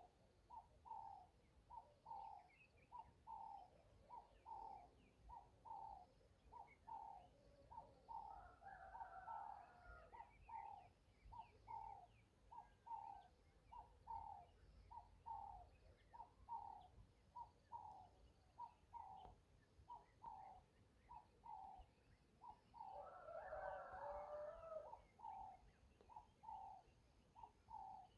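Faint bird calling: one short note repeated evenly, about one and a half times a second, with two louder spells of mixed chirping, about a third of the way in and again near the end.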